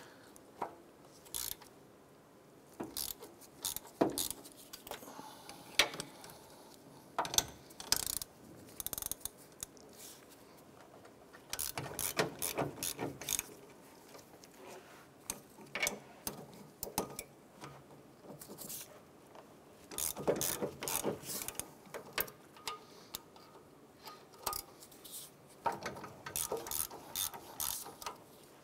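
Hand ratchet clicking in short, irregular runs, with occasional sharp single clicks and metal clinks, as bolts are loosened with a ratchet and wrench.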